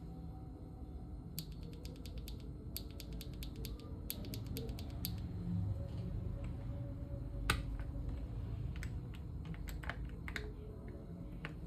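Leobog Hi75C mechanical keyboard being typed on: quick runs of keystrokes for a few seconds, then slower, scattered key presses with one louder stroke about halfway through.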